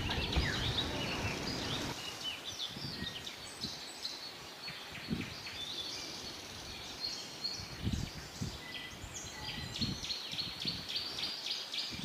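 Several small birds chirping and twittering over one another in a garden, with a low rumble in the first two seconds and a few soft low thuds later.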